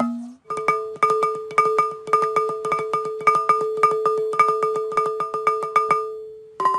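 Music on a struck, pitched percussion instrument, one note repeated in rapid strokes of about five a second. Near the end it pauses briefly and resumes on a slightly lower note.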